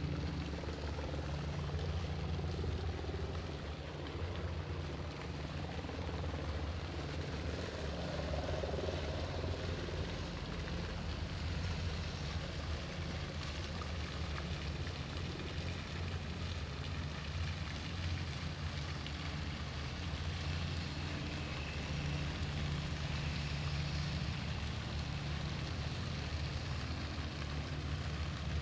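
Steady low engine drone, with several steady low tones held unbroken and an even hiss above.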